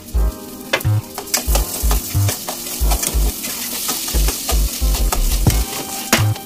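Rice frying in oil in an enamel pot, sizzling, with the scrape and clink of a metal spoon as it is stirred. Background music with a deep, regular bass beat plays over it and is the loudest sound.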